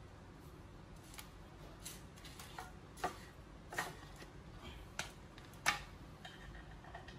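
Shoe-cabinet parts being fitted together by hand: a series of about seven sharp clicks and light knocks at irregular intervals, the loudest a little before the end.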